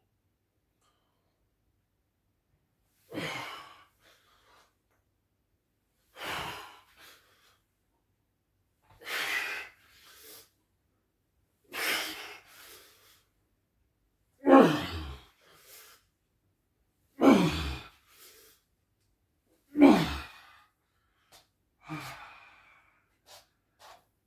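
A man's forceful exhalations, about one every three seconds, eight in all, each let out as he drops forward from arms overhead in a bioenergetic discharge exercise. From about halfway the breaths turn into loud voiced sighs that fall in pitch, then the last two are softer.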